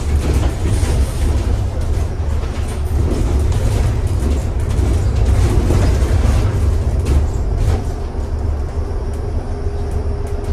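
Bus in motion heard from the passenger cabin: a steady low rumble of engine and road with frequent rattles and knocks from the body. A steady hum joins near the end.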